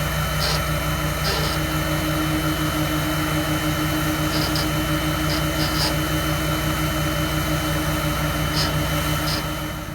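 A heavy vehicle's engine running steadily at a constant speed, with short high chirps every second or two. The sound drops away suddenly at the very end.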